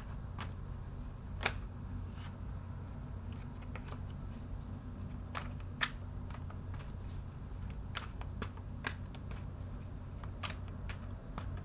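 Tarot cards being shuffled by hand: irregular light clicks and taps, one to three a second, over a steady low hum.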